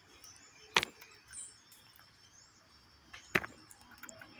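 A jacu (a guan) pecking grain right at the microphone: two sharp beak taps, about two and a half seconds apart.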